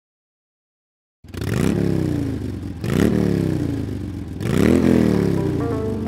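A second of silence, then an electronic music track starts with three sweeping tones, each rising quickly and sliding down, about one and a half seconds apart. Steady held notes follow near the end.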